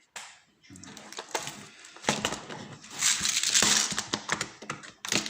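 Close handling noise: rustling and crinkling with many sharp clicks and knocks, loudest about three seconds in.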